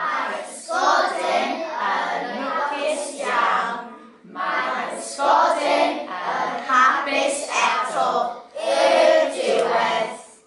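A class of young children chanting together in unison, in three sing-song phrases with short breaks between them.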